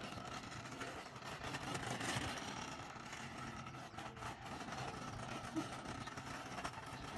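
RipStick caster board's wheels rolling over textured exposed-aggregate concrete: a steady rolling noise.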